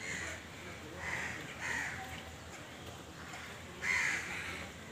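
A crow cawing four times, the last caw the loudest.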